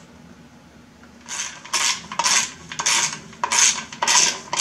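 Socket ratchet clicking in quick strokes, about two a second, starting about a second in, as the bolt holding the oil pickup tube bracket is run down.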